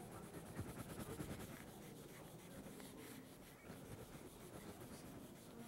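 Faint scratching of chalk rubbed back and forth on a blackboard, shading in an angle mark.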